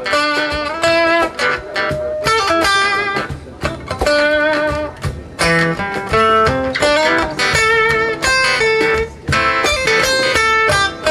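Guitar playing an instrumental passage of a song: a run of single plucked notes without singing.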